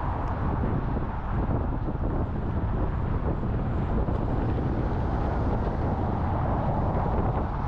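Strong wind blowing across the microphone: a steady, loud low noise with no let-up.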